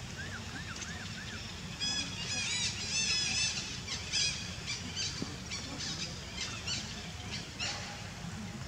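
Young macaques squealing as they scuffle: a few small chirps, then about two seconds in a quick run of loud, high-pitched arched squeals, thinning out into scattered short squeaks.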